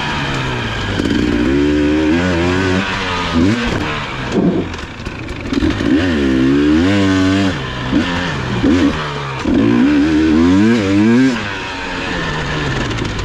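Enduro dirt bike engine revving up and down again and again as the throttle is worked along a twisty trail, with short quick blips and brief drops off the throttle.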